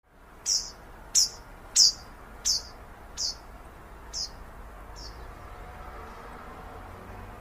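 A songbird calling a series of seven short, high chirps, evenly spaced about two-thirds of a second apart and growing fainter toward the end, over a steady outdoor background hiss.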